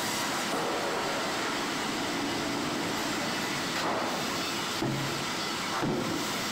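Sawmill machinery running with a steady noise, with a few brief clunks about four, five and six seconds in.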